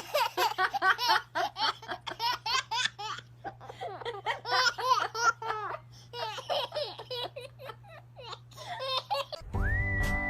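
High-pitched laughter in quick repeated bursts, like a small child's, over a steady low hum. Near the end it gives way to a louder sound with one long held high note.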